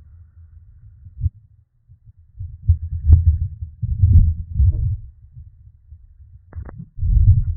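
Strong storm wind gusting against a security camera's microphone: irregular low rumbling bursts, the strongest about three to four seconds in and again near the end.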